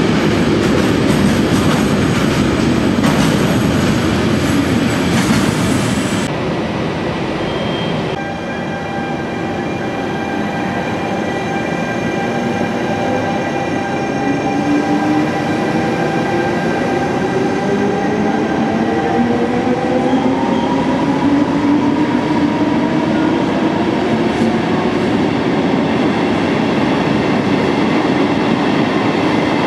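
For the first six seconds, a long freight train of loaded log wagons rumbles past in an underground station. Then an electric locomotive-hauled regional train pulls away, its traction motors whining in several tones that rise steadily in pitch as it gathers speed.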